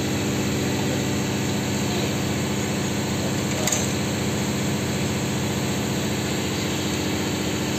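An engine running steadily at idle, an even drone that does not change, with one short click about halfway through.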